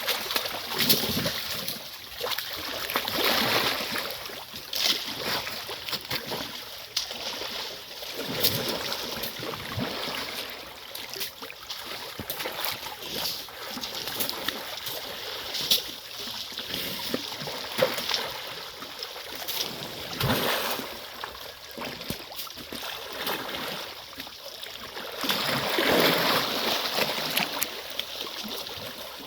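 Wet mud and water splashing and sloshing as a young elephant plays in a mud wallow, with many small sharp splashes and louder bouts of splashing a few seconds in and again near the end.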